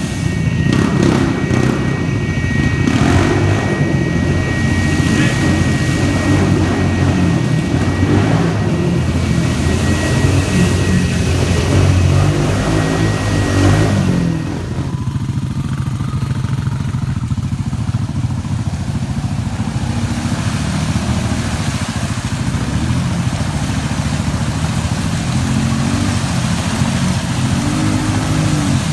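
ATV engines revving hard and unevenly as the quads churn through deep mud holes, pitch rising and falling with the throttle. About halfway through the sound drops and changes abruptly to another quad running a little lower, with a rising rev near the end.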